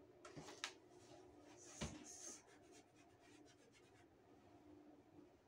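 Faint scratching strokes of writing, with two light knocks in the first two seconds. It trails off to near silence after about four seconds.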